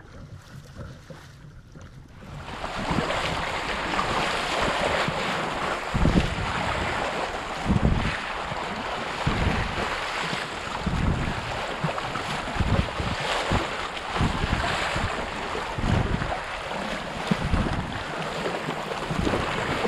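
Wind buffeting the microphone over water noise from a kayak on a moving river, starting abruptly about two seconds in, with deep thumps every second or two.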